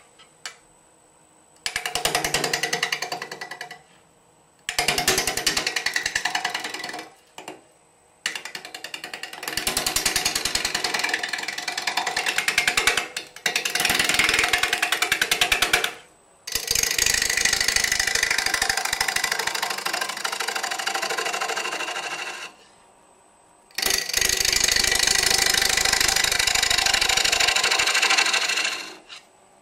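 Bowl gouge cutting a spinning Drake elm branch-crotch blank on a wood lathe. The gouge meets the uneven, bark-edged wood in a fast, even knocking once per turn of the blank. There are about six passes of a few seconds each, with short pauses between them.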